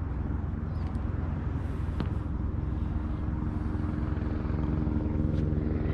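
A steady, low engine hum with a single sharp click about two seconds in.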